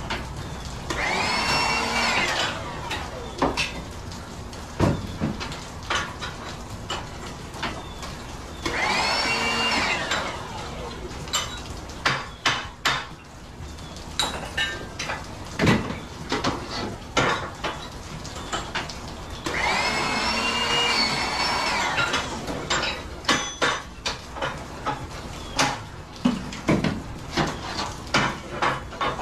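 A handheld power tool runs in three bursts of two to three seconds each, its motor whine rising as it spins up and falling as it stops. Between the bursts come sharp clanks and knocks of metal fixture and transformer parts being handled as they are broken down for scrap.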